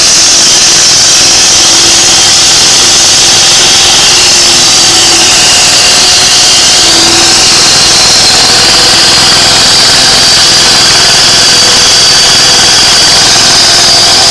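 Engine-driven concrete cutting saw running loud and steady, with a high-pitched whine from the blade throughout.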